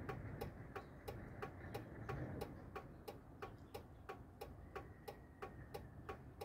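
Steady, even ticking at about three ticks a second, over a faint low rumble.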